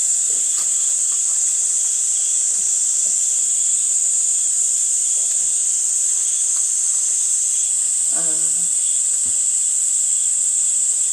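Cicada chorus, a loud, steady high-pitched drone with no break. A brief voice sound comes about eight seconds in.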